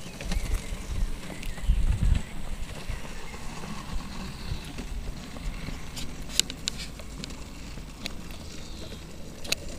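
Low rumble of wind on the microphone, strongest in the first two seconds, with a few sharp clicks in the second half.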